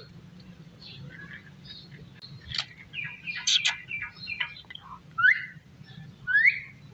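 Rose-ringed parakeet giving scattered short, high chirps and clicks, with two rising chirps in the second half.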